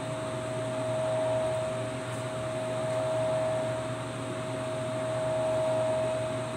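Steady electric motor hum with a constant high whine, swelling and easing slightly every couple of seconds.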